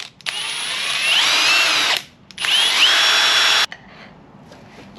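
Impact driver run in two bursts, the first about a second and a half long and the second just over a second, its motor whine rising as it spins up each time, undoing the damper bolt at the bottom of the fork leg.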